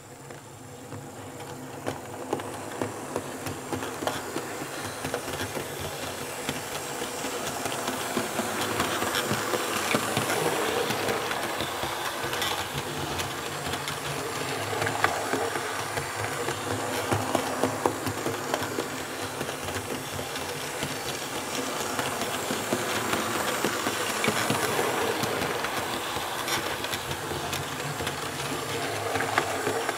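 Model trains running round a loop of track: the motor hum and wheel rumble of an H0 Märklin E41 electric locomotive with its coaches on Märklin K-Track, with sharp clicks as wheels pass rail joints. The sound grows louder over the first several seconds, then holds steady. The track is laid on two layers of Zeon-kasei SANDAM CZ-12 sound-insulating sheet.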